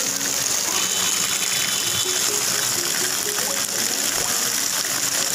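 Muddy floodwater rushing fast over a road and stones, a steady, unbroken rush. Faint music with held notes plays underneath for a stretch in the middle.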